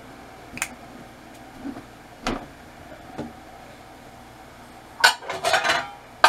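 Kitchenware being moved around: a few separate clinks and knocks of dishes and pans, then a burst of clattering about five seconds in.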